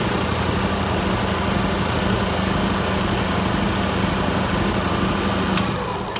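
Alternator test bench's electric motor spinning a belt-driven alternator, running steadily with a hum and a whirring whine. A sharp click comes near the end, then the motor starts to spin down with a falling pitch.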